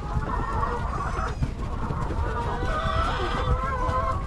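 A flock of laying hens clucking and calling over one another.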